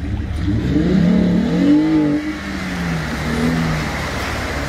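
Jeep engine revving as it drives into deep floodwater, its pitch rising then falling about two seconds in, over a steady low rumble and the splash and rush of water pushed aside.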